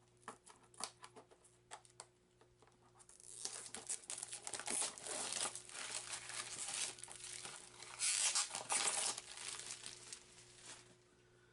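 Clingy plastic shrink wrap being peeled and torn off a card-game box, crinkling. A few light crackles come first, then from about three seconds in a dense run of crinkling and tearing, loudest around eight seconds in.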